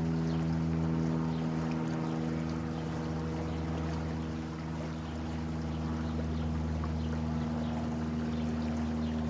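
A motor running at a steady, unchanging low pitch, with a hiss of flowing water under it.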